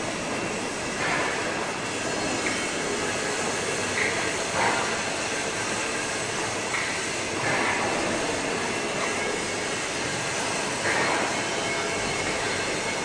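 Steel fabrication workshop machinery: a steady industrial din with several short metallic squeals rising out of it.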